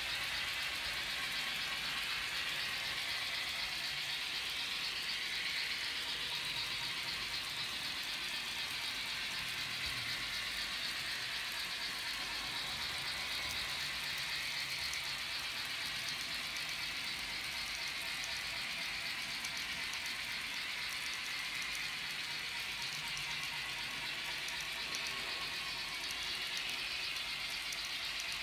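N gauge model train running on the layout: a steady rattling hiss.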